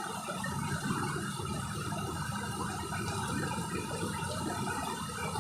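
Waterfall with water rushing steadily, an even hiss of falling and splashing water.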